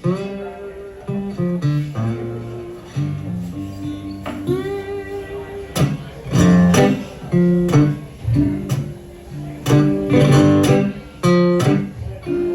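Acoustic guitar playing a blues instrumental passage: picked single notes and short chords, some left ringing.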